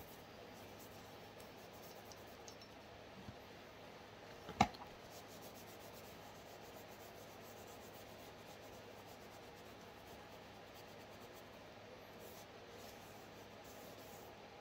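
Faint rubbing of a cloth rag over a pistol slide during cleaning, with one sharp click about four and a half seconds in.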